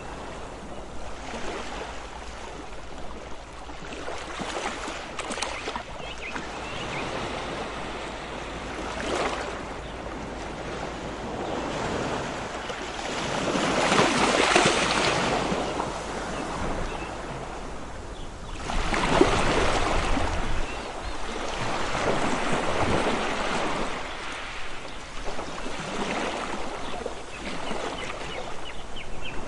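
Ocean waves washing in, rising and falling in repeated surges of hiss; the two biggest come about halfway through and about two-thirds in.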